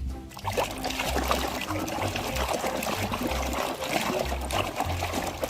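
Water splashing and sloshing as muddy toy vehicles are washed in it. Background music with a steady bass beat plays underneath.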